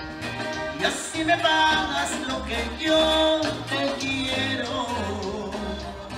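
Latin American dance music played over a sonido sound system, with a steady bass beat and a bending lead melody over it.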